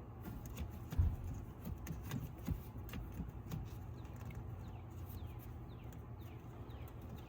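Hand tools and engine parts clicking and knocking during work on the engine, with a heavier thud about a second in and another a second and a half later. A bird repeats short falling chirps throughout.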